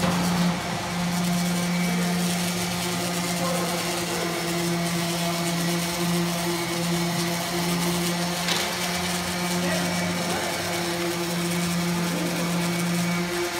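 An electric motor of a workshop machine running steadily with a constant hum, dipping briefly a few times.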